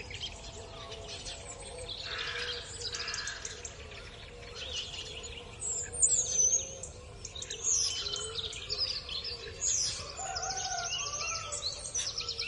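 Small songbirds chirping and twittering in quick high calls and whistled glides, over the soft low clucking of a flock of chickens.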